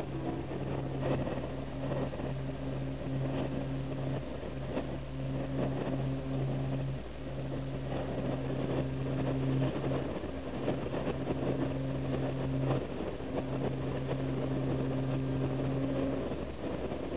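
Train running, heard from inside the carriage: a steady rumble with a low hum that drops out briefly now and then, and scattered light clicks and knocks.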